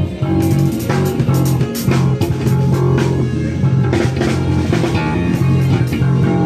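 Band music with a drum kit keeping a steady beat, a bass guitar and an electric guitar playing.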